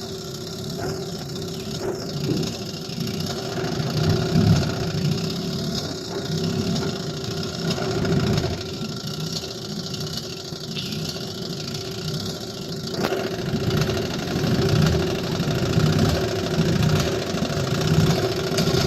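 1955 Johnson QD-16 two-stroke twin-cylinder outboard motor running, its level rising and falling. It runs fairly well at high speed but idles poorly at low speed.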